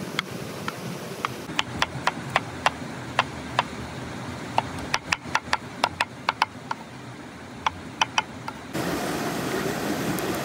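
Cleaver chopping tomatoes on a wooden cutting board: a run of sharp, irregular knocks, several a second at times. About nine seconds in it switches suddenly to the steady hiss and rush of an open wood fire burning.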